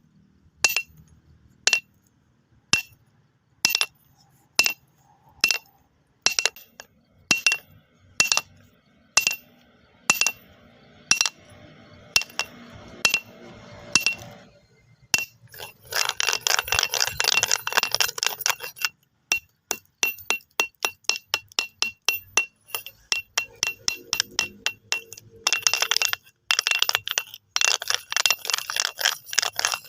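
Stones clinking against each other: single hard clicks about once a second for the first half, then a fast, dense run of clicks through the second half.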